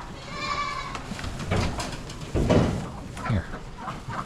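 Goats bleating, with one loud bleat about two and a half seconds in and a shorter falling call after it.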